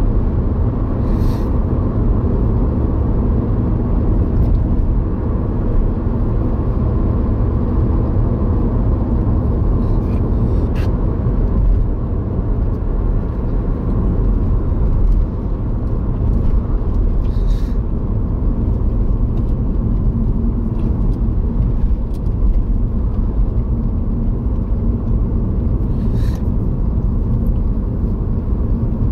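Steady road and engine rumble inside a car cabin travelling at speed, with a few brief ticks.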